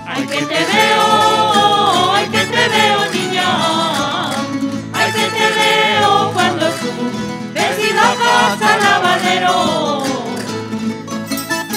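Live folk music: voices singing over plucked string instruments. There are two sung phrases, with a short stretch of instruments alone between them.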